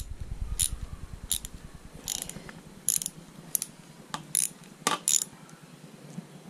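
A socket ratchet clicking in short bursts, about one every three-quarters of a second, as a 10 mm nut at the motorcycle's clutch lever is worked with a ratchet and socket.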